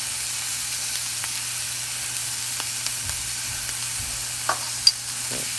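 Marinated chicken breast sizzling on a hot cast iron grill pan: a steady frying hiss with a few small pops, the sharpest about five seconds in.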